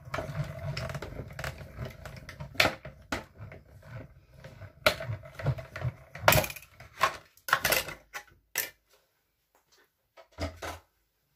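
Small hand-cranked die-cutting machine rolling a stack of cutting plates and a metal die through its rollers: a steady low grinding rumble with clicks and clacks of the plates, which stops about eight seconds in. A single low knock follows near the end.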